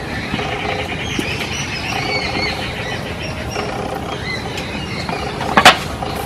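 Wooden rolling pin rolling out folded dough on a floured wooden board, a steady rolling and rubbing sound, with one sharp knock near the end.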